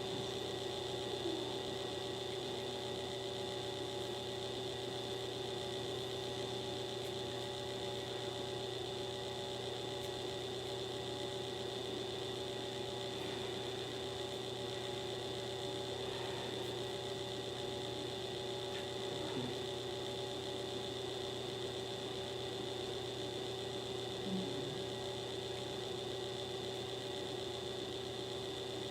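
Steady electrical or machine hum and whir, several held tones over a faint hiss, unchanging throughout, with a few faint soft knocks.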